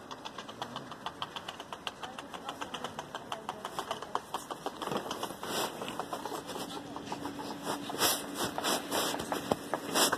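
Footsteps of ankle boots on asphalt with a fast run of light ticks, about five or six a second, from a small dog trotting alongside. From about five seconds in the steps come heavier and quicker, and a faint steady hum joins about a second later.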